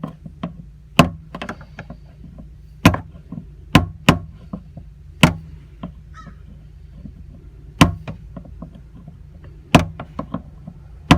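Hammer striking a small flathead screwdriver to tap the fuel pump's locking ring loose: about eight sharp single knocks spaced irregularly a second or two apart, over a low steady hum.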